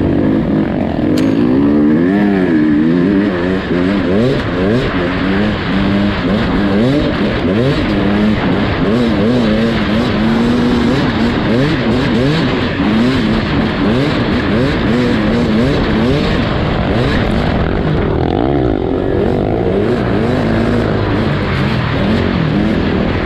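Beta RR250 enduro motorcycle engine, heard from a camera mounted on the bike, revving up and down without a break as it is ridden, with a rush of wind and trail noise over it.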